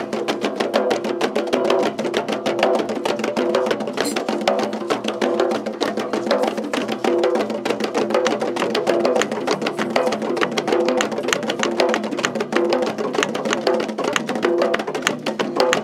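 Percussion music: rapid, evenly spaced strikes in a steady rhythm over a pitched layer.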